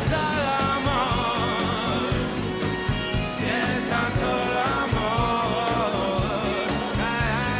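Live rock band playing: strummed acoustic and electric guitars, bass and drums with a steady beat, and a wavering lead melody over the top.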